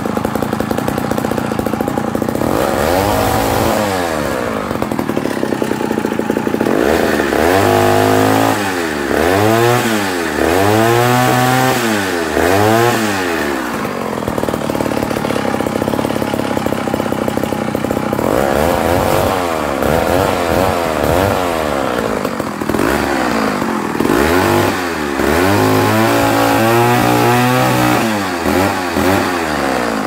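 Old McCulloch 1-62 two-stroke chainsaw running at idle and revved repeatedly with throttle blips, the pitch rising and falling each time, including several quick blips in a row. It now revs out freely, its reed valve cleared of a splinter of wood that had held it stuck open.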